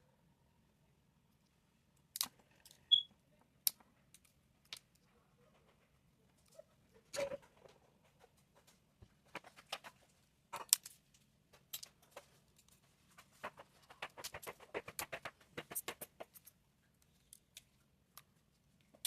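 Scattered light clicks and taps of small tools being handled, with a quick run of rapid clicking about two-thirds of the way in.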